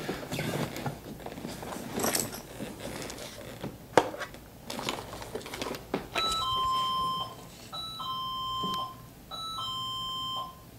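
Wireless motion-sensor alarm chiming a two-note ding-dong three times, a short higher note falling to a longer lower one, after some handling knocks and rustling. The chime signals that the motion sensor left running on the floor above has been triggered.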